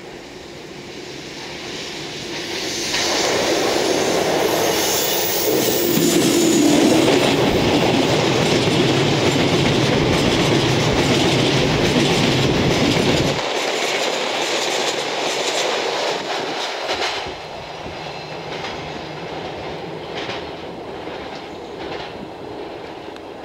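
EF65 electric locomotive hauling a train of empty rail-carrying flatcars up a grade: the train noise swells from about 2.5 s in as it comes out of the tunnel, then the flatcars go by close with a clickety-clack over the rail joints. The sound drops suddenly about 13 seconds in and fades as the train recedes.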